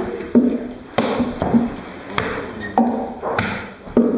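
Three long wooden pestles (kine) pounding steamed rice into mochi in a wooden mortar (usu), striking in turn. Dull, sticky thuds fall in a steady rhythm of about one and a half strokes a second.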